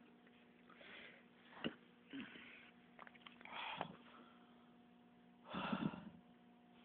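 A person's short, noisy breaths and sniffs close to a phone's microphone, four or five of them, the longest and loudest about five and a half seconds in. A single sharp click partway through.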